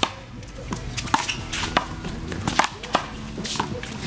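Handball rally: the small rubber ball slapped by hand and smacking off the wall and court, a string of sharp smacks about two a second, some louder than others.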